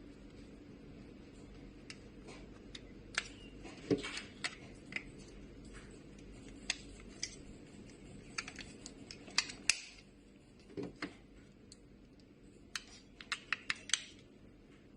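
Irregular sharp plastic clicks and taps from a handheld digital infrared thermometer being handled, with a quick run of several clicks near the end, over a low steady hum.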